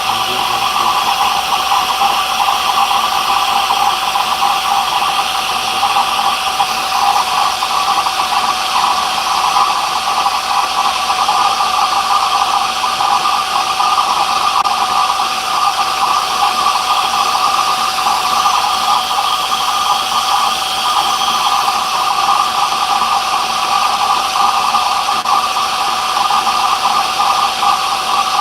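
Electric woodworking machine running steadily, an even whine and hiss that does not change.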